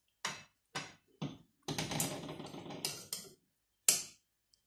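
Utensil knocking against a stainless steel pot of cubed sweet potatoes, three quick knocks, then about a second and a half of stirring and scraping through the cubes, and a last sharp knock near the end.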